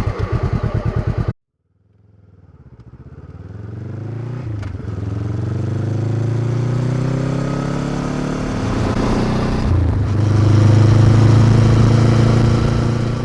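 Honda CB500X parallel-twin motorcycle engine with an aftermarket Staintune exhaust, idling with an even pulse for about a second before an abrupt cut. The bike then pulls away: engine pitch rises as it accelerates, with gear changes about a third of the way in and again near the three-quarter mark, then it runs steadily at speed.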